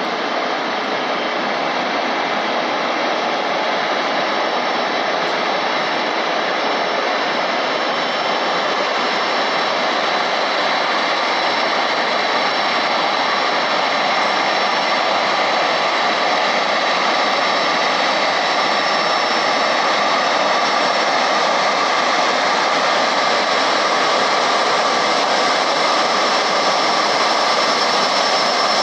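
Airbus A350-900's Rolls-Royce Trent XWB jet engines running at taxi power as the airliner rolls in to the gate: a steady rushing jet noise with a faint high whine, growing slowly louder.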